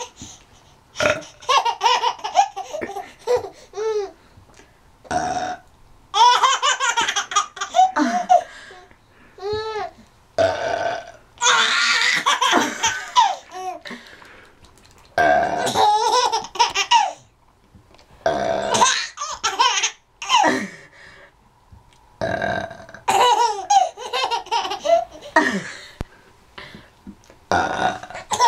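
A woman burping again and again, and a baby laughing hard in fits after the burps, in repeated bursts with short pauses between.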